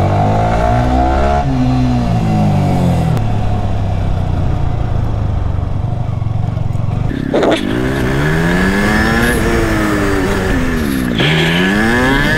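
Yamaha R15's single-cylinder engine revving, its pitch climbing and dropping several times, with sharp falls and renewed climbs like gear changes under acceleration.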